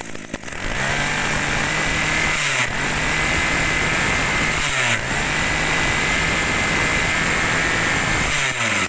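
Hitachi FCG21EA brush cutter's small 21cc two-stroke engine starting just under a second in and running loudly, its speed dipping and picking up again twice, then stopping shortly before the end.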